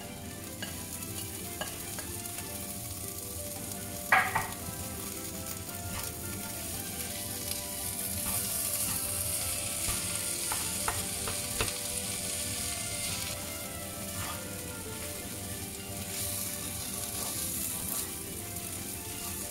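A sausage, rice and tomato stir-fry sizzling in a frying pan as it is stirred and turned with a spatula, which scrapes and taps against the pan. The sizzle swells twice, and there is one sharp knock about four seconds in.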